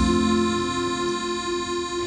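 Live band music: a chord held steadily through, an accordion among the instruments, with the deep bass mostly dropped out.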